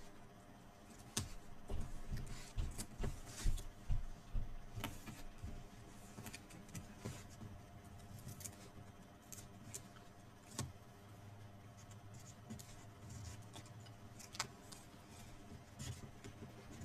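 Cardstock and adhesive tape being handled while a paper box is taped together: irregular light rustles, taps and clicks.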